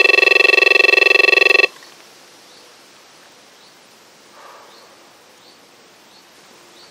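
Electronic bite alarm on a carp rod sounding a continuous, rapid-fire beeping tone: a take, with a carp running line off the rod. It cuts off abruptly under two seconds in as the rod is lifted from the alarm, leaving quiet open-air background.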